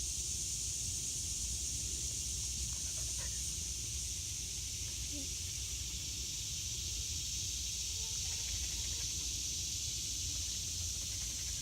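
Steady high-pitched drone of a summer forest insect chorus, over a low rumble of wind on the microphone, with a few faint short chirps.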